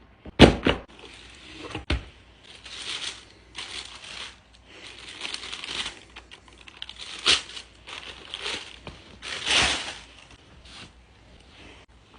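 Packaging being torn open and handled by hand: irregular rustling, crinkling and tearing of paper, with sharp knocks about half a second and two seconds in.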